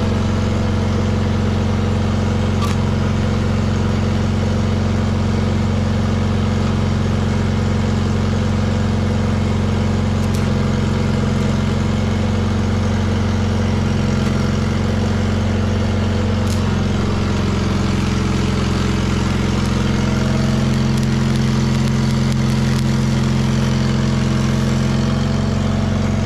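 The Onan engine of an old Miller engine-driven generator welder running steadily. Its note shifts slightly about two-thirds of the way through.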